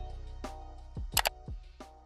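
Background music with a beat of deep thumps that drop in pitch and sharp clicks, getting gradually quieter.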